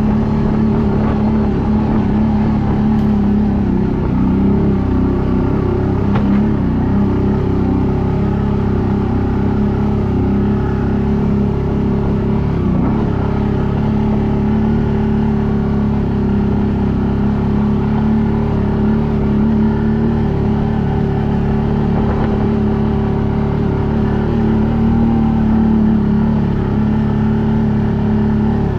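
ATV engine running steadily while riding, its pitch holding nearly constant with a few brief small wavers.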